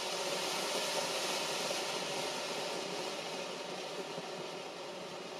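Funke Silbertürme silver firework fountain burning, giving a steady spraying hiss of sparks that eases off slightly toward the end.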